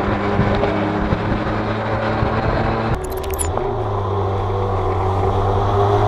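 Motorcycle engine running steadily while riding, with a short burst of clicks about three seconds in, after which the engine note changes and steadies again.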